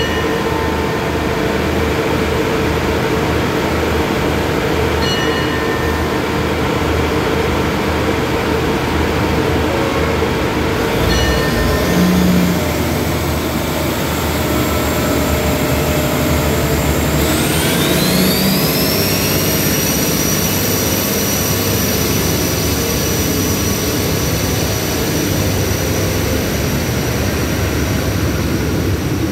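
Three-car diesel railcar train's engines running at the platform, then throttling up about halfway through as the train pulls out. A high whine rises and then holds steady over the engine sound.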